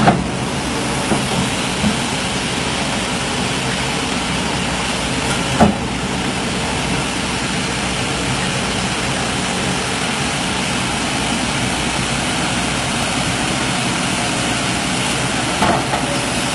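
Excavator's diesel engine running steadily, with a few short knocks, one about halfway through and a couple near the end.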